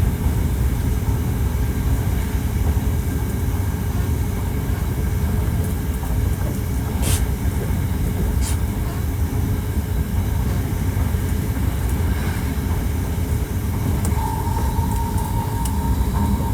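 Hankyu 1300 series electric train running between stations, heard from inside the car: a steady rumble of wheels on rail with a faint steady tone. There are two brief hissing sweeps around the middle, and a steady higher-pitched tone comes in near the end.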